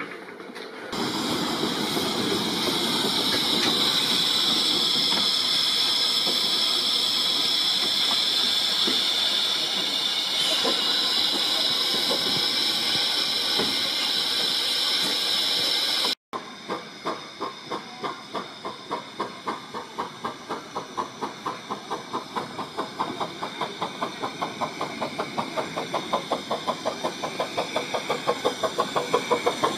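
Steam hissing steadily from the 15-inch-gauge 0-4-0 steam locomotive THE BUG as it stands. After a sudden cut about halfway through, its exhaust beats regularly as it works a train, getting louder and quicker near the end.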